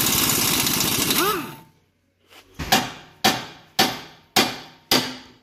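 A power tool whirring and winding down about a second and a half in, then a hammer striking a steel drift held against the front hub carrier: five sharp metal-on-metal blows, about two a second, each ringing briefly.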